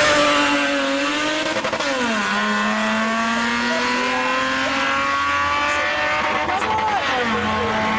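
A car engine revving hard as the car pulls away. Its pitch falls sharply about two seconds in, then holds and creeps up, and falls again near the end.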